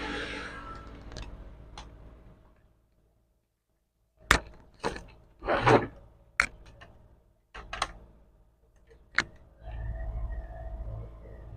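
Several sharp clicks and knocks, with one short scrape, from tools and parts being handled on a workbench. A motor vehicle's engine runs in the background at the start and returns near the end.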